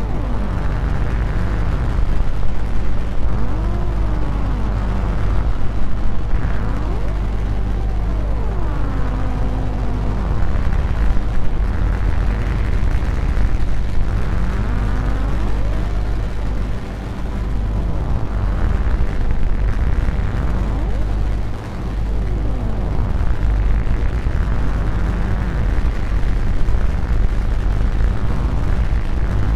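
Lumanoise v4 noise instrument playing a dense, rumbling drone, with pitched tones gliding up and down every few seconds as its filter is swept. It is played through echo delay and plate reverb.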